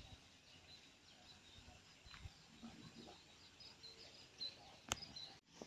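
Near silence: faint outdoor ambience with small birds chirping, and one sharp click near the end.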